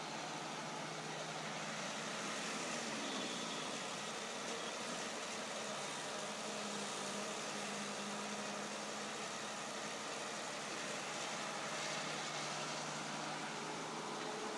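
Sumitomo hydraulic excavator's diesel engine running steadily as it digs and swings a bucket of soil, with a short change in pitch about two to three seconds in.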